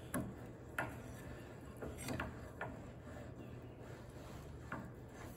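Stiff swivel top of a tractor three-point lift link, clamped in a vise and freshly oiled, being worked with a bar to make it turn: about five faint metal clicks spread over a few seconds.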